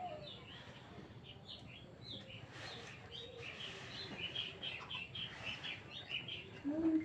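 Baby birds chirping in a quick run of short, high squeaks while being fed, the begging calls of hungry chicks.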